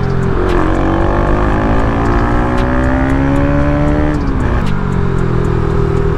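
Motorcycle engine accelerating, its pitch climbing steadily for about four seconds before the revs drop and settle lower.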